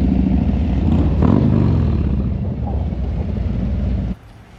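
Harley-Davidson V-twin motorcycle engine running on the road, with wind noise; its pitch dips and climbs again about a second in, and the sound cuts off suddenly near the end.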